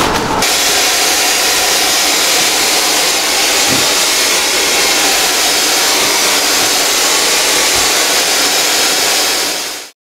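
Electric fogger running steadily, a loud, even blowing hiss as it sprays a disinfectant mist; it cuts off abruptly near the end.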